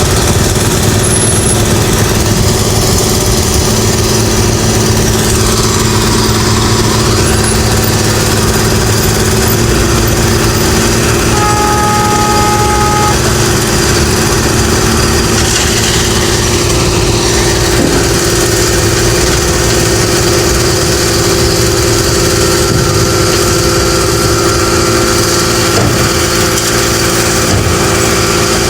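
Heavy road-construction machine's engine running steadily at a constant loud level, with a brief two-note tone about twelve seconds in.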